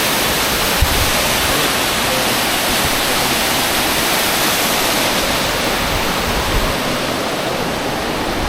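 Waterfall rushing: a loud, steady roar of falling water, with a brief low thump about a second in.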